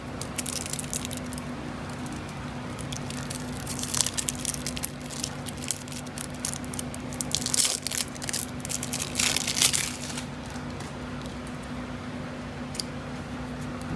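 Shrink-wrapped trading-card deck box being opened by hand: plastic wrap and cardboard crinkling and tearing in bursts, loudest around four seconds in and from about seven to ten seconds in, then dying down. A faint steady low hum runs underneath.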